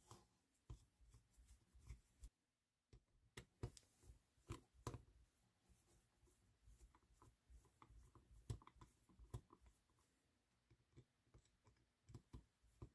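Faint, scattered clicks and scrapes of a screwdriver backing screws out of the plastic end cover of a 12-volt mini air compressor, with a slightly louder knock about five seconds in and another past the middle.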